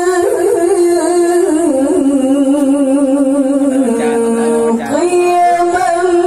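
A woman's melodic Qur'an recitation (tilawah) amplified over loudspeakers: long held notes with a fast vibrato. The pitch steps down lower through the middle and climbs back to the opening note about five seconds in.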